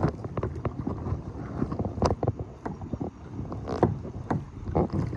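Low wind rumble on the microphone aboard a kayak, with scattered small irregular clicks and knocks.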